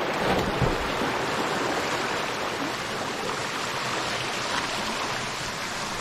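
Steady rush of a small waterfall pouring into a rock pool, with a splash in the first second as a swimmer dives head-first into the water.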